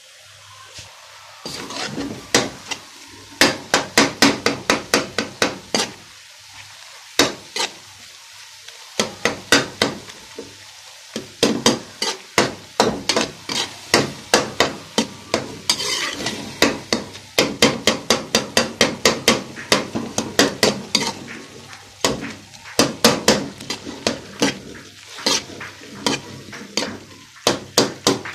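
Metal spoon scraping and knocking against a metal pot in quick runs of strokes as minced mutton keema is stirred, with short pauses between the runs. The keema fries with a light sizzle underneath.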